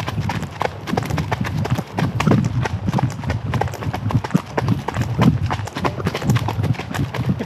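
Hoofbeats of two horses trotting on a trail: a quick, steady clip-clop with low thuds, one horse close behind the other.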